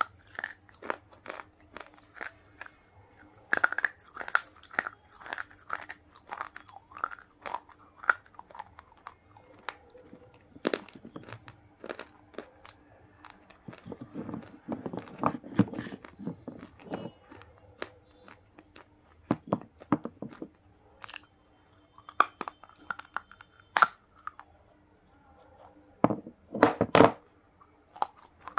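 Close-miked crunching and chewing of hard, chalky pink dry bars: crisp snaps as pieces are bitten off, with a dense stretch of grinding chewing around the middle and the loudest crunches near the end.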